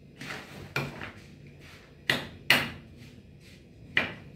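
A plastic tarpaulin rustling as its edge is gripped and tugged, with four sharp snaps of the sheet; the middle two and the last are loudest.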